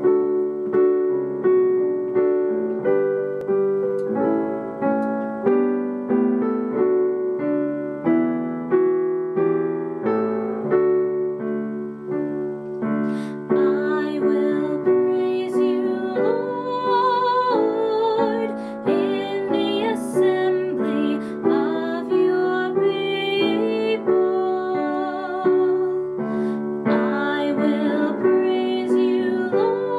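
Keyboard music: an electric piano playing the song's chord intro in D major, with evenly struck notes. About halfway through, a higher, wavering melody line joins in.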